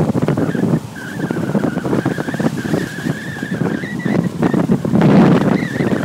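Off-road vehicle driving over rough ground: uneven engine and jolting, rattling noise, with a high steady whine running through most of it.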